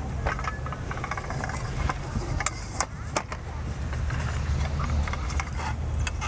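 A low steady engine hum with scattered sharp clicks and knocks over it.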